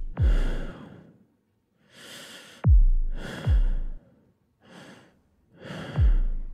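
A series of breathy sighs and exhales, about five in all, four of them struck at their start by a deep boom that falls quickly in pitch into a low rumble, like a sub-bass drop. This is sound-design hits rather than a live scene.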